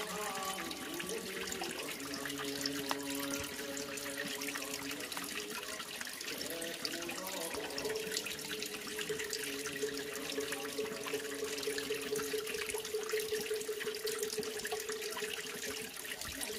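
Mountain spring water trickling steadily from a rock face into a shallow pool. Underneath, long held pitched notes, in the manner of Buddhist chanting, change pitch now and then.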